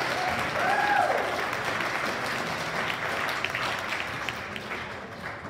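Audience applauding, slowly fading away. A voice calls out over the clapping about a second in.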